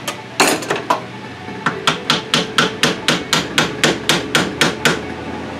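Hammer tapping on a valve of a 1942 Briggs & Stratton Model A engine to free it for removal: a couple of separate taps, then a steady run of quick light strikes, about four a second, that stops near the end.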